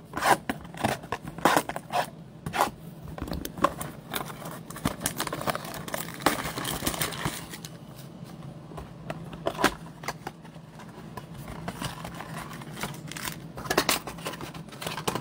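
A Topps Chrome trading card blaster box being torn open by hand and its foil packs pulled out: a run of sharp crackles, scrapes and tearing of wrapper and cardboard.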